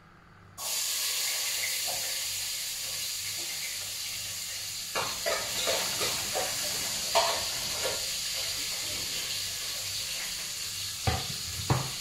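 Chopped ingredients dropped into hot oil in a pot on a gas stove: a sizzle starts suddenly about half a second in and runs on steadily, the start of a sauté. From about five seconds in, a spatula taps and scrapes against the pot as it is stirred, with a few sharper knocks near the end.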